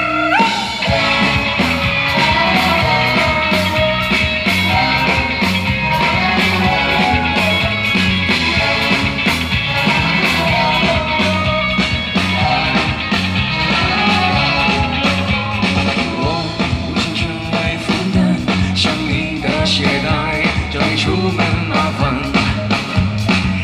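Live rock band playing an instrumental passage through the stage PA: electric guitars, bass and drums.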